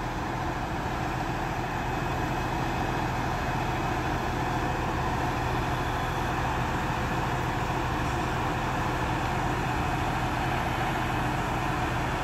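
Truck engine idling steadily, a constant low hum with steady engine noise and no change in speed.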